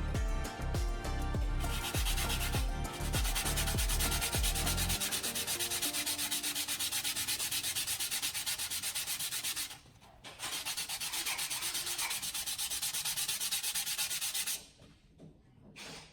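Abrasive sanding or rubbing in quick, regular back-and-forth strokes, with a brief pause about ten seconds in, stopping abruptly near the end. A low pulsing beat of background music underlies the first few seconds.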